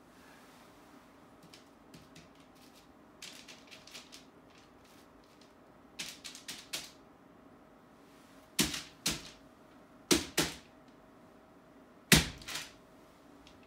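Sharp knocks and clicks from paint pens and art materials being handled and tapped against the wall panel: light scattered clicks at first, then louder knocks in close pairs about every second and a half in the second half.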